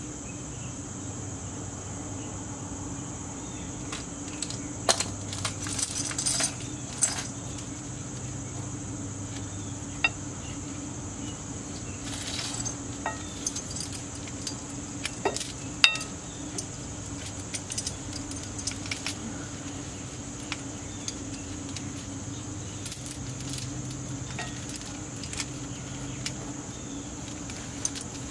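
Metal hand tools and parts clinking and tapping in scattered, irregular bursts, over a steady high insect drone.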